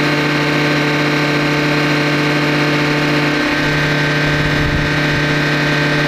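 Large tractor's diesel engine running at steady revs while working under load, with a low rumble joining in for a couple of seconds past the middle.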